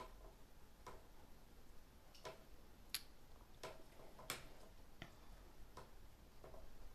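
Near silence with faint, light clicks, roughly one every three-quarters of a second, not quite evenly spaced, over a low room hum.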